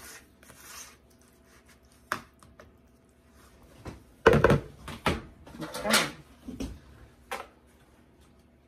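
Scattered knocks, clacks and scrapes of a serving spoon against a mixing bowl and aluminium foil pans being handled on a counter, with the loudest cluster about four to six seconds in.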